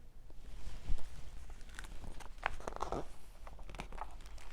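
Faint rustling and a few light taps of a picture book being handled, its paper pages moving.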